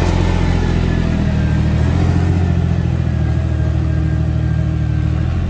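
Toyota SUV engine running steadily at low revs during a steep off-road dirt climb, a deep, even drone.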